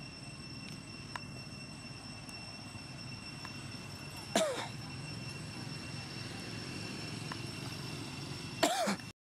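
Two short calls from long-tailed macaques, each sliding in pitch: the louder one comes about four seconds in and the other near the end. They sit over a steady low hum and a thin, even high tone.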